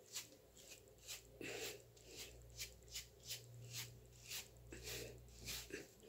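Hairbrush strokes through short hair, a quick run of soft bristle swishes, about two or three a second.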